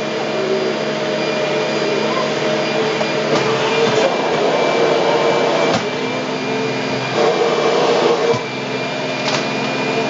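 Upright vacuum cleaner running steadily with a constant motor hum, and a few short knocks as it is moved about.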